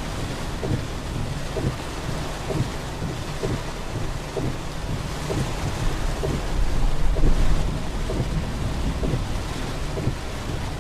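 Heavy rain falling in a thunderstorm: a steady hiss of rain with frequent drops tapping, and a low rumble of thunder that swells about two-thirds of the way through.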